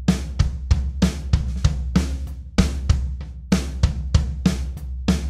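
Background music with a steady drum-kit beat: kick, snare and cymbal hits over a sustained bass line.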